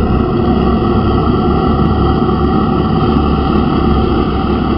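Creature scream sound effect for the dogman: one long, harsh scream that holds steady and very loud throughout.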